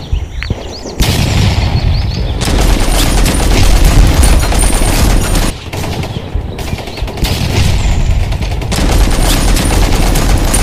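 Machine-gun sound effect: rapid automatic fire starting about a second in, running in long bursts with a short let-up about halfway.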